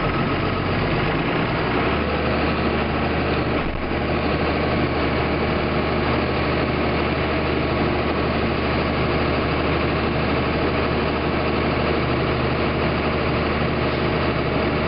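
Combine harvesters running while cutting soybeans, heard from inside a cab as a steady engine and machinery drone. The low hum shifts to a new steady pitch about one to two seconds in.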